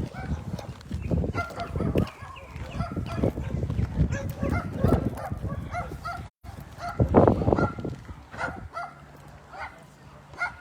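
Repeated short animal calls, many in a row throughout.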